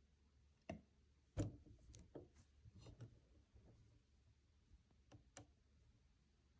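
Quiet handling sounds of an unboxing: about eight scattered light clicks and knocks, the loudest about one and a half seconds in.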